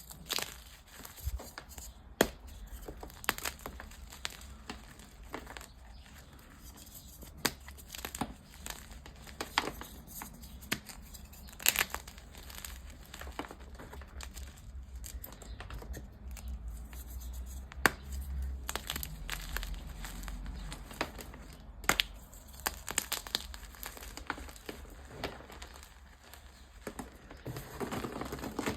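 Dyed gym chalk being crushed and crumbled, a steady crunchy, powdery crackle broken by irregular sharp snaps as pieces give way.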